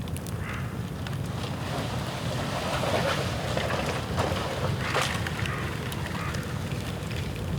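Bonfire of dead bamboo burning, a steady rushing noise with scattered sharp crackles and pops and a louder flare about three and again about five seconds in.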